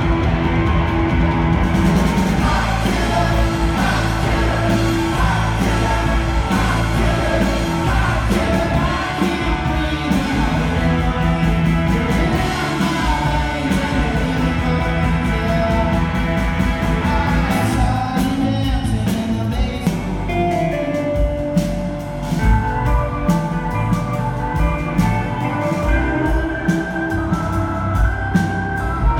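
Live rock band playing with sung vocals; the drums come through more sharply over the second half.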